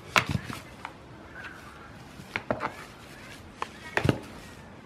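Young goats butting heads: scattered sharp knocks of heads and horns clashing, in small clusters near the start, in the middle and near the end.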